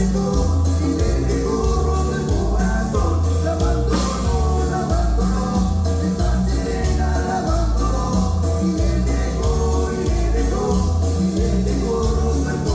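A band playing a song at a sound check: a singing voice over a steady drum beat with cymbal strokes and a pulsing bass line.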